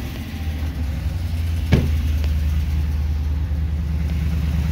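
Pickup truck engine idling steadily just after a start; the owner's mechanic takes the noise it is making for a cracked flex plate. A single sharp knock about two seconds in.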